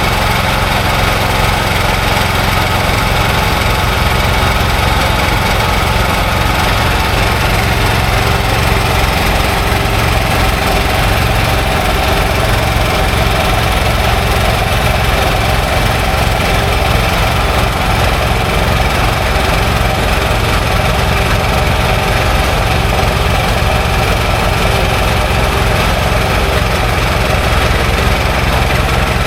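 Combustion engine running steadily at a constant speed.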